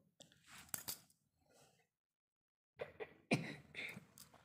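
Cut pointed gourd pieces dropped by hand into a kadai of hot oil, with a spatula against the pan: a few scattered knocks and scrapes, the loudest about three seconds in. The sound drops out completely for about a second midway.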